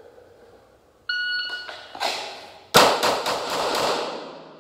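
A shot timer beeps once, and about a second later a red-dot-equipped handgun fires from the holster draw: a first shot, then a fast string of shots roughly a quarter second apart. The shots echo off the bare concrete of the range bay.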